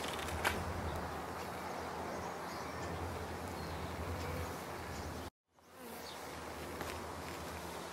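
Honey bees buzzing steadily around an open hive, with a single light click about half a second in. The sound drops out briefly about five seconds in, then returns.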